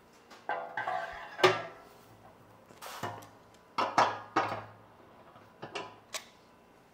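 Steel-on-steel clanks and clinks as a screw-in water-heater-type heating element is fitted into a steel drum's threaded bung and turned with adjustable pliers: a series of sharp knocks, some with a brief metallic ring.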